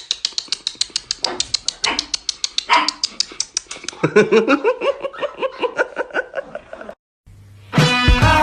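Husky dogs yipping and whining in short rising-and-falling cries over a fast, even ticking of about eight or nine clicks a second. The cries grow longer and more tuneful after about four seconds. Loud rock music cuts in just before the end.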